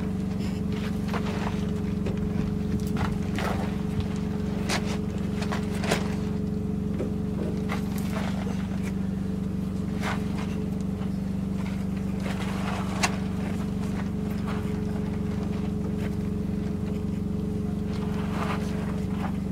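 A steady motor drone with light clicks and scrapes from hands working a black plastic drain pipe into a rubber coupling and tightening the coupling's clamp. One sharper click comes near the two-thirds mark.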